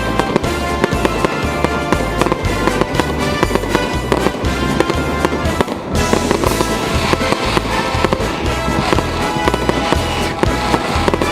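Holiday fireworks salute going off in many quick bangs, with music playing along throughout.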